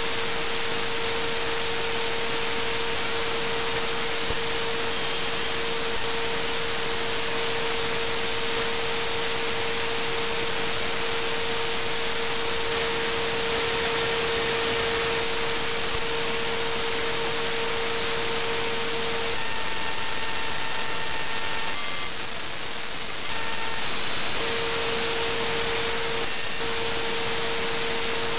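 Static hiss from an HDSDR software-defined radio set to wideband FM, where no station's audio comes through: the receiver is failing to demodulate local FM broadcasts. A steady mid-pitched tone runs through the hiss, drops out for a few seconds about twenty seconds in, and short higher beeps come and go around then.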